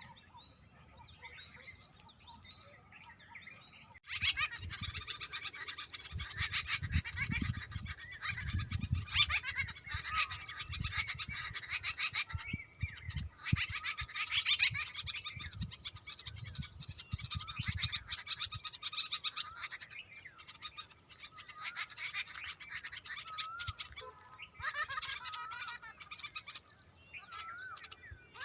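Many small birds chirping and chattering at once, a dense, busy chorus that swells about four seconds in after a few sparse calls, with low rumbling noise underneath for a while.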